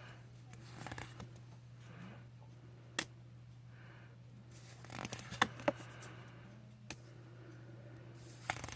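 Trading cards from a booster pack being handled: soft rustling with a few sharp clicks and snaps, a cluster of them about five seconds in. Breathing close to the microphone rises and falls between them over a steady low hum.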